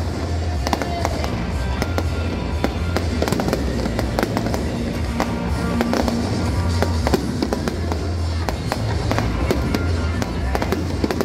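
Fireworks bursting and crackling in rapid, dense volleys over loud music with a steady bass.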